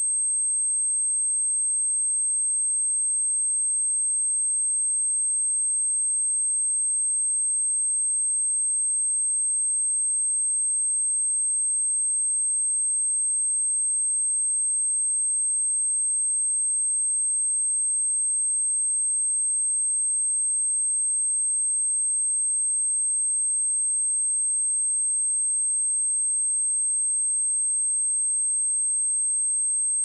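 A pure 8365 Hz sine wave test tone: one steady, unbroken, high-pitched tone with no other sound, used to test speakers and headphones.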